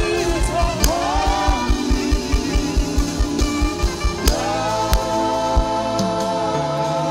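Live gospel worship music: women's voices singing with a band over a fast low drum beat. About four seconds in a crash hits, and the voices settle into long held notes with vibrato while the drum hits thin out.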